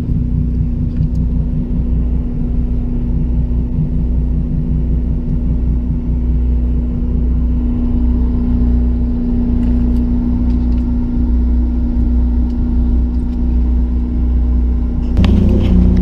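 Sportfishing boat's engine running with a steady low drone, heard from on deck. Near the end the drone gets louder and its pitch shifts.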